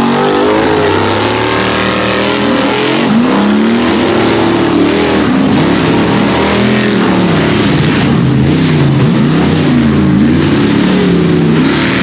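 Rock bouncer race buggy's engine revving hard, its pitch rising and falling again and again as the driver works the throttle up a steep dirt hill climb.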